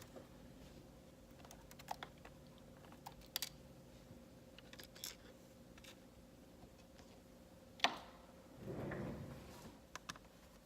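Light clicks and taps of a screwdriver and small screws on a laptop's plastic screen housing as screws are taken out, with a sharper click about eight seconds in and a short rustle just after it. A faint steady hum underneath.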